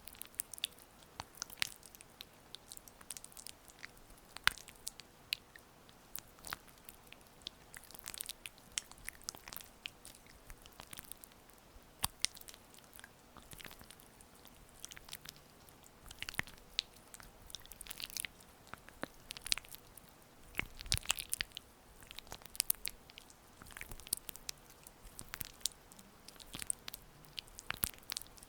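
Oiled hands rubbing and pressing skin close to the microphone, making irregular wet, sticky crackles and clicks over a faint steady hiss.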